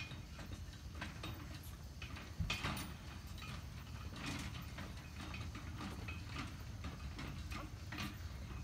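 Horse-drawn cart and harness in motion: irregular clattering and clicks, over a low steady rumble.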